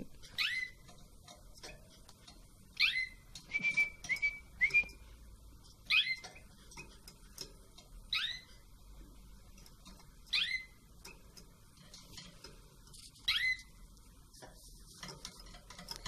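Short whistled chirps, each sliding quickly downward, repeated six times about every two to three seconds, with three short level whistled notes a few seconds in: a person whistling to prompt newly hatched chicks to open their beaks for syringe feeding.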